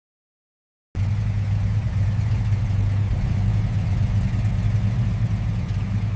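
Old truck engine running steadily at idle, cutting in abruptly about a second in after silence, with a deep, even hum.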